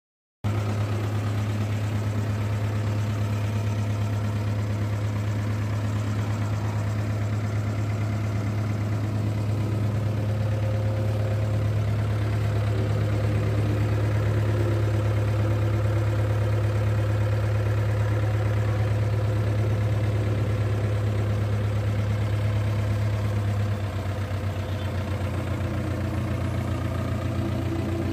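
Old Miniarta bus engine idling steadily and smoothly, a constant low hum, a little quieter for the last few seconds.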